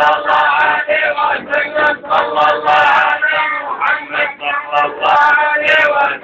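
A group of men chanting a Sufi devotional song, with a large frame drum beaten in sharp strokes under the voices.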